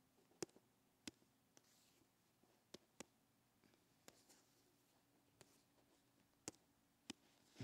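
Near silence: faint room tone with a low hum and about seven sharp, irregularly spaced clicks.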